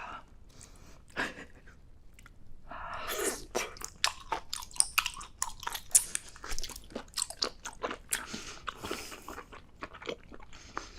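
Close-miked eating: a few clicks early, then from about two and a half seconds in a big bite and steady chewing, with many sharp wet clicks and crunches.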